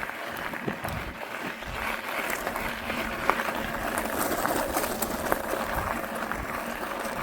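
Crunching and rattling of movement over a rough gravel trail, with many scattered sharp clicks, building in loudness over the first couple of seconds.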